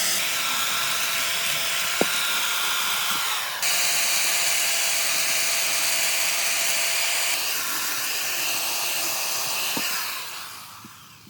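Electric power tool running on wood: a steady motor whine under a hiss, with a sharp click about two seconds in. The sound shifts twice, then the tool winds down and fades near the end.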